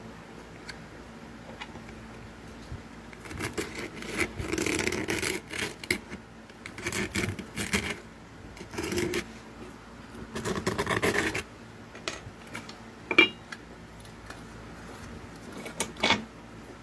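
Thin tin-can metal scraped and rubbed in several rough bursts, followed by a sharp metallic click about two thirds of the way in and a lighter one near the end.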